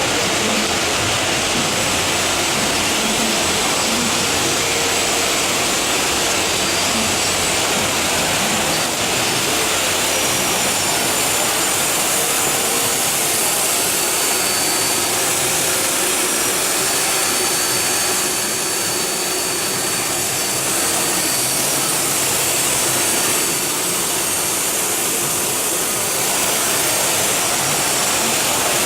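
JGZFX4 4000 CNC machining center for aluminium profiles running: a steady, loud hiss with a thin high whine through the middle.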